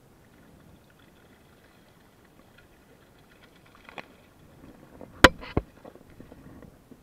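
Gear knocking on a sit-on-top fishing kayak: a small click about four seconds in, then two sharp knocks in quick succession a little after five seconds, with light handling clatter afterwards over a faint hiss.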